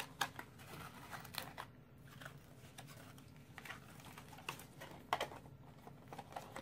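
Cardstock box being folded and handled: faint rustling of card with scattered small taps and clicks as the flaps and insert are pressed into place.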